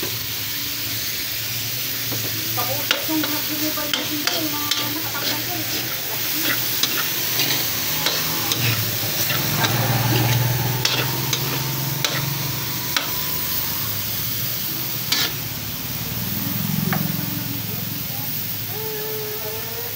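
Young jackfruit sautéing with pork, onion, ginger and tomato in a hot pan: steady sizzling, with a spatula scraping and knocking against the pan as it is stirred.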